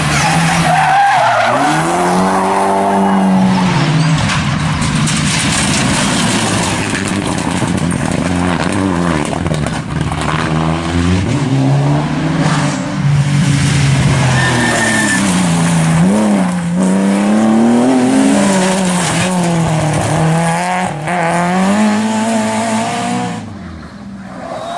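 Rally car engine at full throttle, its pitch climbing and dropping again and again through gear changes and lifts, over a hiss of tyre noise. Loudness falls away near the end.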